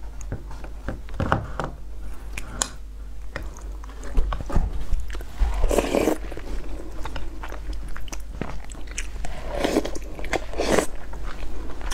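Close-miked chewing and wet mouth sounds of someone eating braised pork belly over rice, with many small clicks and smacks. Louder bursts of biting and slurping come about six seconds in and again around ten seconds.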